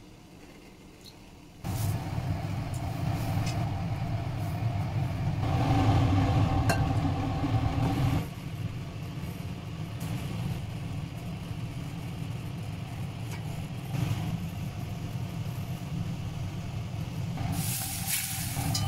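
A steady low rumble of kitchen noise sets in about two seconds in and runs on. Near the end, hot oil ladled onto chili flakes and noodles sizzles with a sharp hiss.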